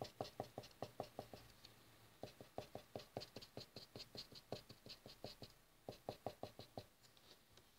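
Felt tip of a green marker dabbing quick short strokes on paper: faint rapid ticks, about four to five a second, in three runs with brief pauses between.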